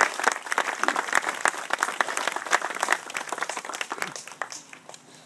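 A gathering of people applauding, the clapping thinning out and fading away about four to five seconds in.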